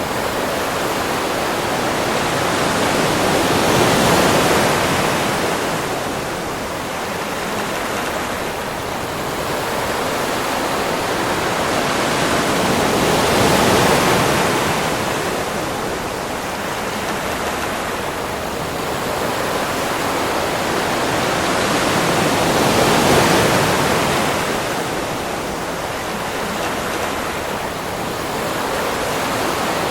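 Ocean waves on a beach: a steady rushing wash that swells and ebbs slowly, three times, about every nine to ten seconds.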